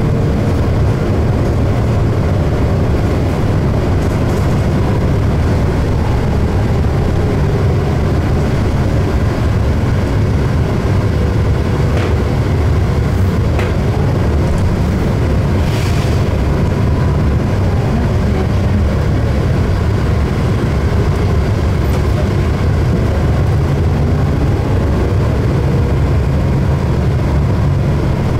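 Orion VII CNG transit bus heard from inside the cabin, its engine and drivetrain giving a steady low drone as it drives. A short hiss sounds about halfway through.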